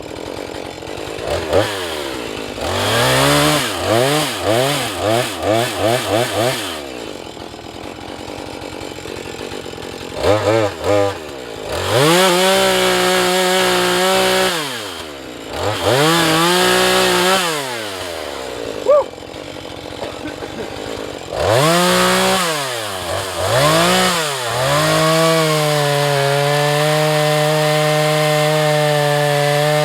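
Husqvarna 435 two-stroke chainsaw idling between throttle bursts: a quick run of short revs a few seconds in, then several runs held at steady high revs for a few seconds each, the longest near the end before the revs drop.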